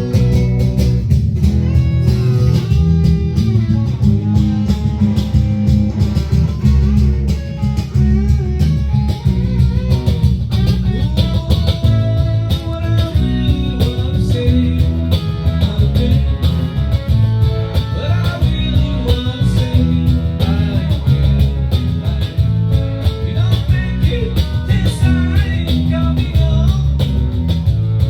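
Live band playing a blues-rock jam: electric guitar leads over bass and drums, with some singing.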